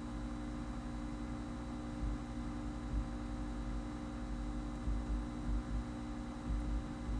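Steady electrical mains hum on the microphone recording, with a few soft low bumps.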